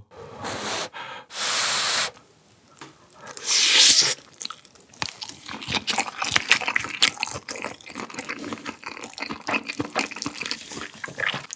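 A mouthful of spicy webfoot-octopus fried rice with flying fish roe, eaten close to the microphone. A few breathy whooshes in the first seconds, the loudest about four seconds in, then wet chewing with many small crackles and clicks.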